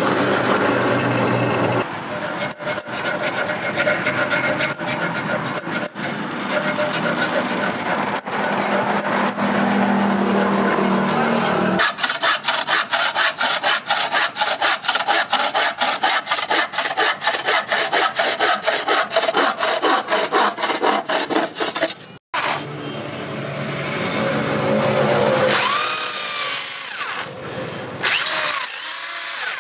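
Workshop tool sounds in turn. A drill press bores through a steel blank. Then a hacksaw cuts a hardwood handle block in quick, even strokes of about three a second. Near the end a drill bores into a wooden block, its motor speed rising and falling.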